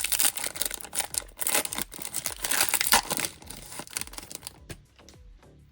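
Foil wrapper of a Topps baseball card pack crinkling and tearing as it is ripped open. The crinkling stops about four and a half seconds in.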